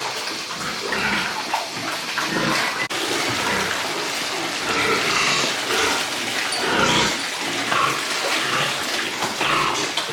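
Water running and splashing, with pigs grunting at times.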